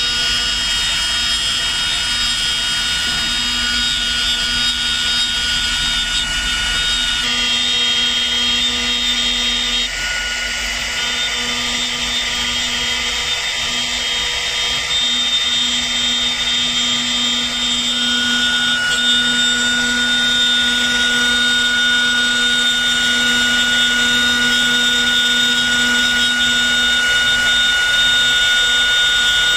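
HTG6090 4-axis CNC router's spindle running, a steady high-pitched whine, as its bit carves a wooden Buddha head turning on the rotary axis. The mix of tones shifts a few times as the cut moves.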